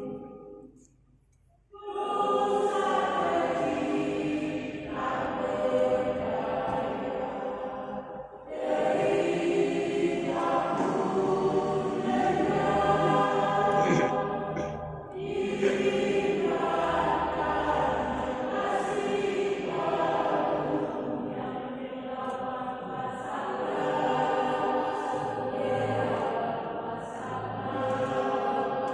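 Choir singing in several voice parts. It falls silent briefly about a second in, then comes back in, with short breaks between phrases.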